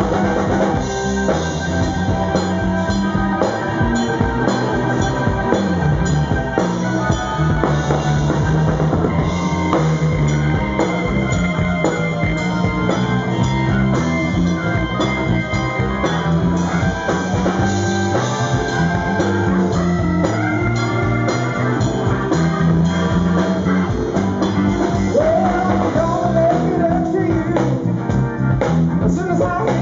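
A live band playing rock: a Roland keyboard, an electric guitar through an amplifier, and a drum kit, all playing together without a break.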